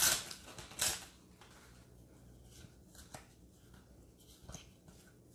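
Sticker packet torn open with two short rustling tears in the first second, then faint soft ticks as the stickers are pulled out and flipped through by hand.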